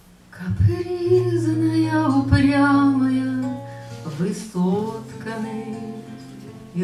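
A woman singing a Russian romance to her own acoustic guitar, the guitar holding low steady notes under a voice that comes in about half a second in.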